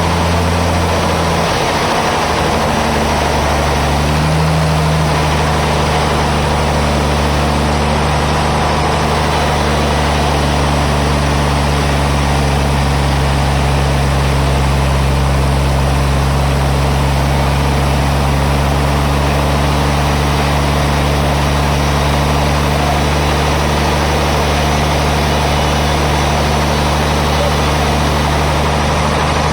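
Sawmill band saw machinery running with a steady low hum and a broad noisy wash over it; the hum shifts briefly about a second and a half in, then holds even.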